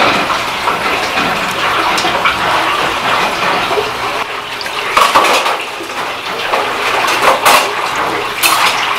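Kitchen clatter of metal bowls and utensils, with several sharp clinks, over a steady rush of running water.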